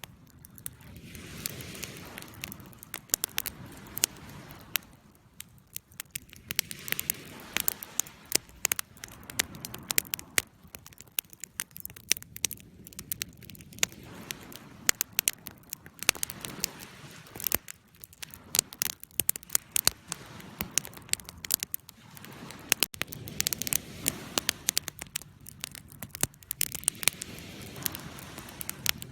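Campfire burning, with irregular sharp crackles and pops over a soft, surging hiss of flames.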